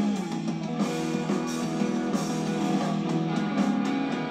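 Rock music with guitar and drums playing from a vinyl record on a turntable.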